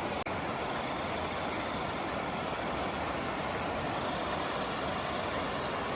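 Steady night-time outdoor ambience: an even hiss with a thin, continuous high-pitched tone over it.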